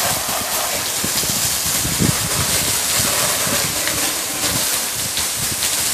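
Steady hiss of a water spray from a hose striking the front of a truck camper, rinsing off sprayed-on bug remover.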